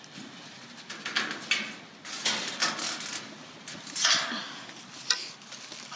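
Chicken wire and zip ties being handled against the coop's sheet-metal panel: a series of about six short rasps and light metallic clinks as the wire is fastened with zip ties.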